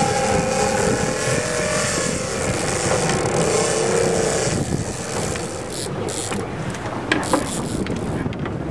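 Twin Honda 150 four-stroke outboard motors running, with wind and water noise, and a few sharp splashes in the second half from a hooked king salmon thrashing at the surface beside the boat.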